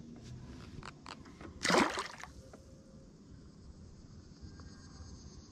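A small catfish splashing into the water as it is let go over the side of a boat: one brief splash about two seconds in.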